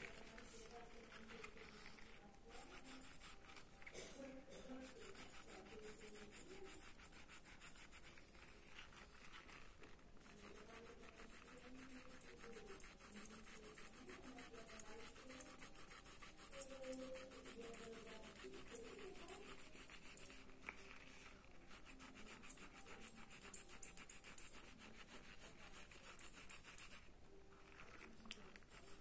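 Faint scratching of a mechanical pencil's graphite lead on paper while sketching, with faint wavering tones underneath.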